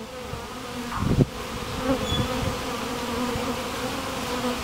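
Honeybee swarm buzzing close up, a steady drone, with a brief low rumble about a second in.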